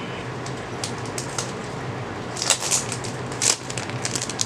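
Clear plastic packaging bag crinkling as it is handled and opened, in short bursts about two and a half seconds in and again about a second later, over a steady low hum.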